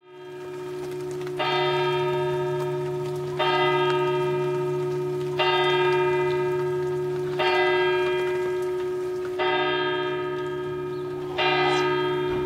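A church bell tolling slowly, one stroke about every two seconds. Each stroke rings on and fades under the next, over a steady low hum. The sound fades in at the start.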